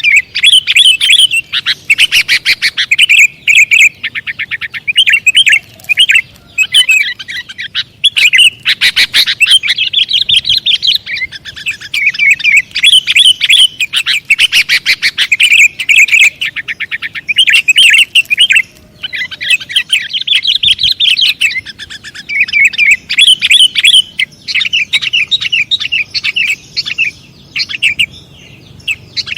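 Sooty-headed bulbuls singing and chattering loudly. Quick bubbling phrases follow one another almost without a break, with only short pauses.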